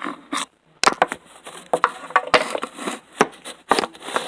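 Irregular run of sharp knocks and clatters from the plastic wall-climbing RC car being handled and knocked against a surface.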